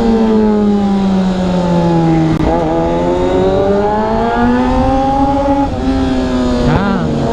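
Motorcycle engine running while riding, over wind rumble on the microphone. The engine note sinks, jumps up about two and a half seconds in, then climbs steadily before easing off near the end.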